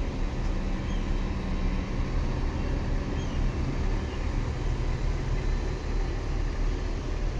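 Bus engine idling: a steady low rumble.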